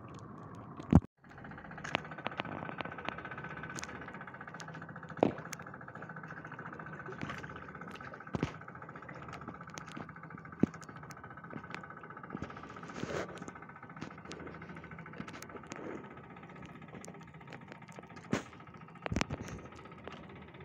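An engine running steadily, most likely the fishing boat's motor, with scattered sharp knocks and clatter on top.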